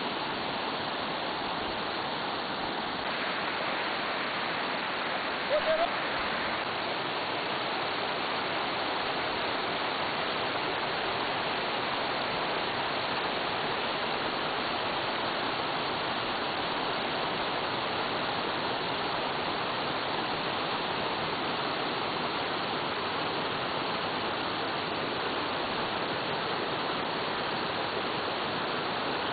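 Spring-fed stream rushing and splashing down a rocky bed in small cascades, a steady, even hiss of running water. A brief sharp sound stands out about six seconds in.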